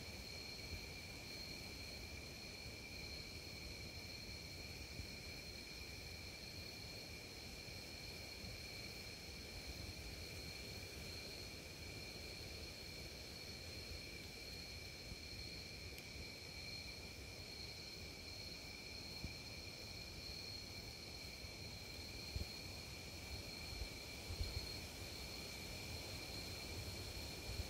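Crickets calling in a steady chorus, heard as two constant high-pitched tones, over a low wind rumble on the microphone. A few short bumps come near the end.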